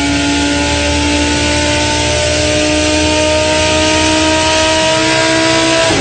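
V10 racing engine running at high revs, its pitch climbing slowly as the car accelerates through a gear. Right at the end the pitch drops sharply at a gear change and starts to climb again.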